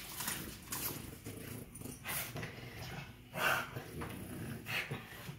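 A Boston Terrier and a French Bulldog play-fighting, making short, rough dog sounds about a second apart. The loudest comes about three and a half seconds in.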